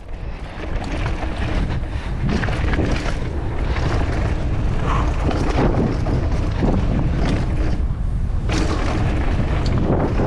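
Wind buffeting the microphone and knobbly tyres rumbling over a dirt trail as a mountain bike rides downhill, with scattered knocks and rattles from the bumps.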